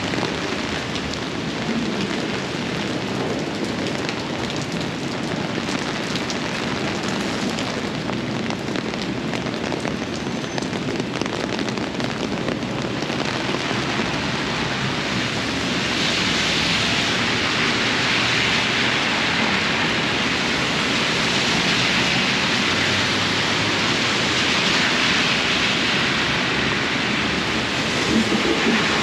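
Steady rain falling and splashing on surfaces, with an even hiss that grows louder about halfway through.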